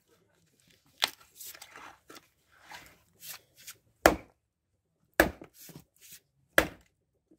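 Fiskars X17 splitting axe striking a log on a chopping block, four sharp blows (about a second in, then near four, five and six and a half seconds), with quieter knocks and scuffs of wood between them as the log splits.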